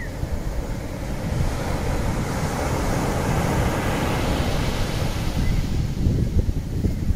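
Small waves breaking and washing up a sandy beach, the wash swelling a few seconds in, with wind buffeting the microphone.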